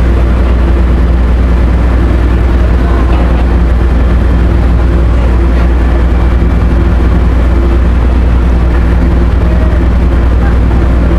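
Ro-ro ferry's engines running steadily: a loud, even low drone with a constant hum.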